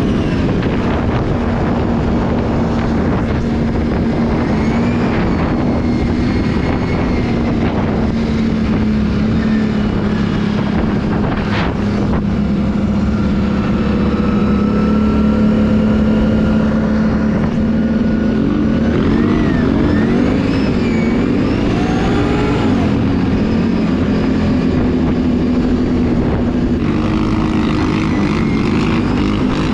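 Can-Am ATV engine running steadily as the quad is ridden, its pitch wavering up and down in the second half as the throttle changes. There is a single sharp knock about eleven seconds in.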